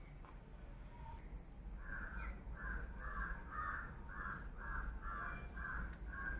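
A crow cawing over and over, about two caws a second, starting around two seconds in, over a low steady rumble.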